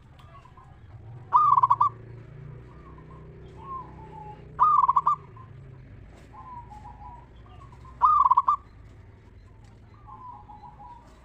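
Zebra doves (perkutut) calling: three loud, rapid rolling coos about three seconds apart, with softer cooing from other doves between them.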